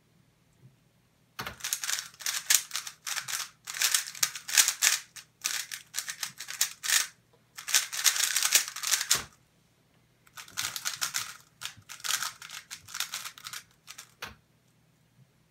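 MoYu Weilong GTS3M Lite 3x3 speedcube turned at speed: fast runs of plastic clacking from its layer turns, broken by brief pauses, ending in a thump about nine seconds in. After a second's pause it is turned again in shorter runs.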